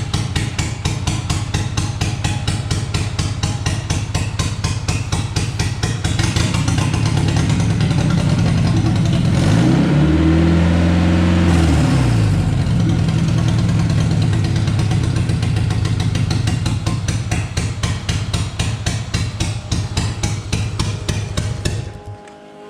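Honda K20 inline-four engine running unevenly, blipped once to a higher pitch and back down about halfway through, then shut off near the end. It is running rough on stale fuel and not firing on all cylinders.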